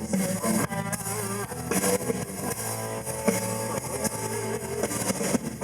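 Blues band playing between sung lines: electric guitar over bass and drums, with a steady beat.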